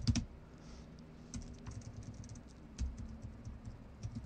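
Computer keyboard being typed on as a password is entered: scattered keystrokes in small irregular clusters, the loudest right at the start.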